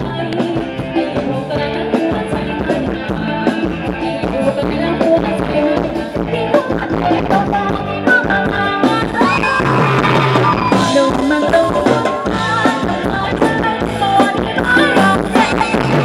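Thai ramwong dance music from a live band, with singing over a steady drum beat.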